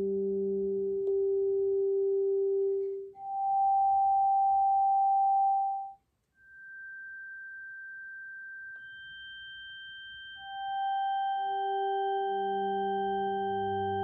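A Dr. Herringbone Tone Traveler, a small vibrating unit on an acoustic guitar's bridge, sounds pure steady sine tones on G in several octaves through the guitar. The notes are switched on and off: low and middle Gs together, then a single higher G, a brief cut-out about six seconds in, then a high G joined by the G an octave above. Toward the end lower Gs come back in one after another, stacking up.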